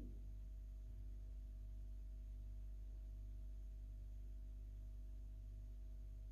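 Quiet room tone: a steady low hum with a few faint, unchanging tones and light hiss, and no distinct event.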